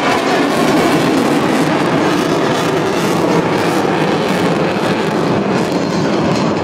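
Loud, steady roar of a fighter jet's engine as the jet passes during an aerial display.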